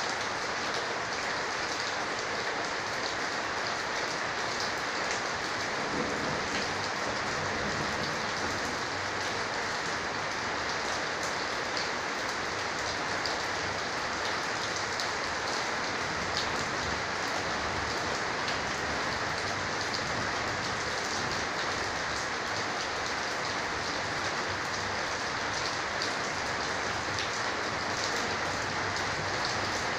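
Steady rain falling on a corrugated roof: a dense, even hiss with scattered drop ticks, unchanging throughout.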